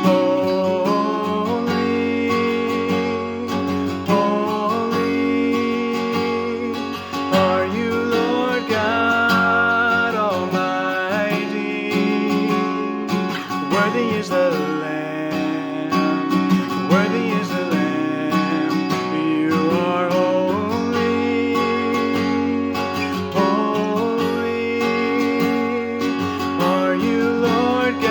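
Acoustic guitar strumming chords under a solo worship vocal that holds long, wavering notes.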